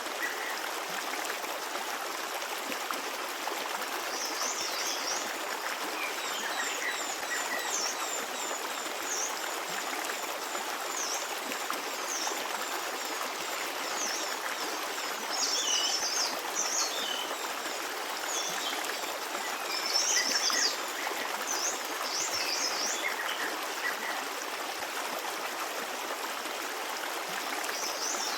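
Forest stream running steadily, with birds singing over it in short high chirping phrases that come in clusters, loudest about 20 seconds in.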